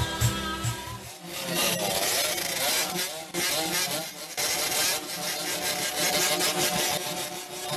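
Small two-stroke motorcycle engine revving up and down several times with throttle blips, its exhaust note rising and falling.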